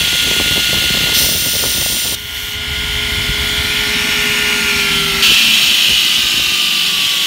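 Belt grinder running loudly as a small steel part is ground against its abrasive belt. There is a harsher, hissing stretch about a second in. The noise drops suddenly at about two seconds and comes back louder near the five-second mark.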